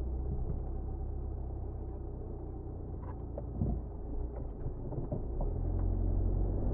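Car driving, with a steady low engine and road rumble and a few short knocks around the middle.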